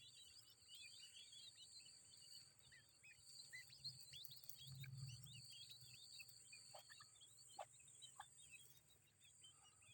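Grey francolin chicks peeping: many faint, quick, high chirps overlapping, thinning out after about seven seconds, with a steady high tone behind them.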